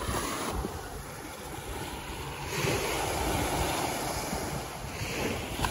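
Small surf breaking and washing up a sandy beach, with wind on the microphone. The wash swells louder for a couple of seconds about halfway through, then eases off.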